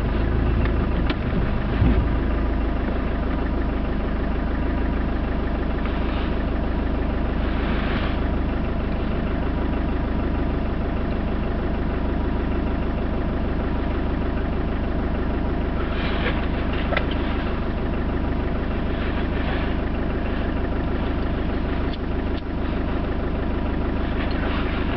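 Land Rover Discovery 300Tdi 2.5-litre four-cylinder turbo-diesel idling steadily, heard from inside the cab.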